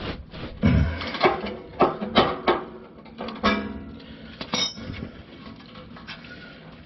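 Steel hand tools clanking and clinking, metal on metal: a handful of sharp ringing knocks in the first few seconds, the heaviest about half a second in, then a few lighter clinks.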